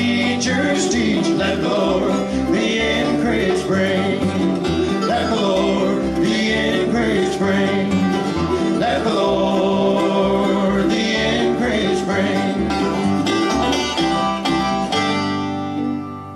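Live bluegrass string band with mandolin playing a fast picked instrumental passage. It ends on a held final chord that rings and fades away near the end.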